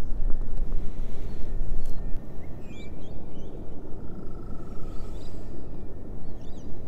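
Wind buffeting the microphone as a loud, uneven low rumble. Over it, birds chirp a few short calls, a cluster a few seconds in and again near the end.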